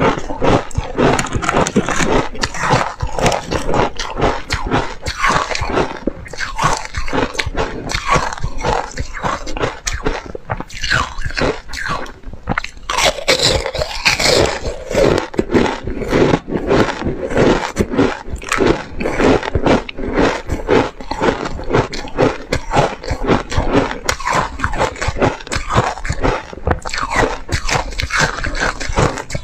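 Frozen ice discs being bitten and chewed, close-miked on a clip-on microphone: a dense, continuous run of crunches. A sharper, brighter bite comes about halfway through.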